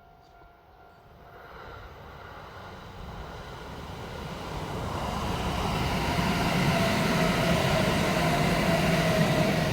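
Kintetsu Kyoto Line electric train approaching, its rumble and running noise growing steadily louder over about six seconds and then holding, with a steady whine coming up out of it near the end.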